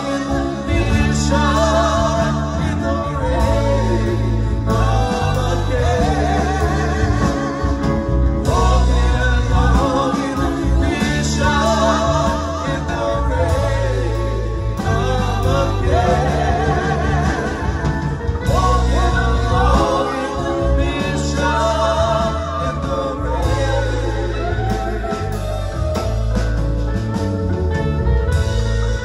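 Live rock band playing, a woman singing lead with vibrato over drums, electric guitar and keyboards.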